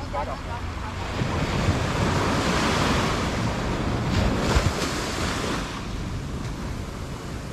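Small ocean waves breaking and washing up a sandy beach, the surge swelling about a second in and slowly ebbing away, with wind rumbling on the microphone.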